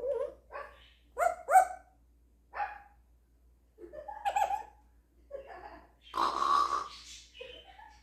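African grey parrot imitating a dog's bark: a series of short, separate barks, then a longer, rougher sound about six seconds in and one more short call near the end.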